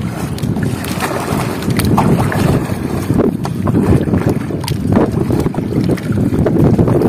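Wind buffeting the microphone over water lapping and splashing around a floating bamboo raft as it is paddled with a long bamboo pole, with a few short knocks or splashes scattered through.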